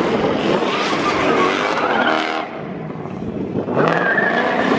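Car tyres screeching as a car spins donuts, with the engine under load. It drops off for about a second past the middle, then picks up again with a rising rev near the end.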